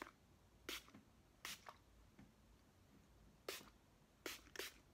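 Pump setting-spray bottle (e.l.f. Magic Mist & Set) sprayed at a face: five short spritzes, unevenly spaced.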